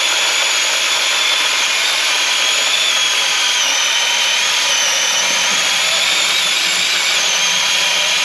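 Seesii SC8B 8-inch cordless mini chainsaw's brushless electric motor running flat out with a steady high whine while its chain cuts through a laurel branch. The pitch sags slightly midway under load.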